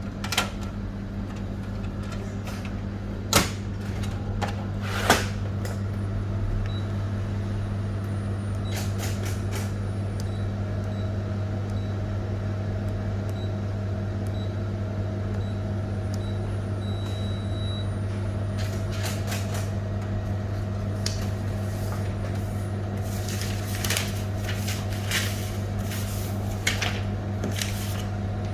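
Canon photocopier humming steadily while its covers and parts are handled, giving sharp clicks and knocks near the start and several more near the end. A row of short high beeps comes in the middle.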